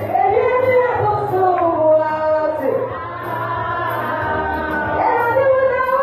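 A woman singing gospel music into a microphone, her voice amplified over steady backing music.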